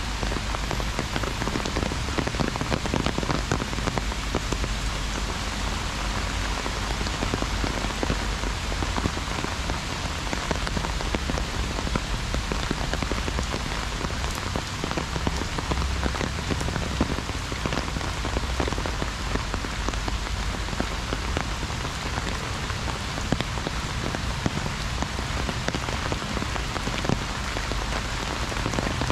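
Heavy rain falling steadily on an umbrella held overhead, a dense, even hiss made of countless small drop hits.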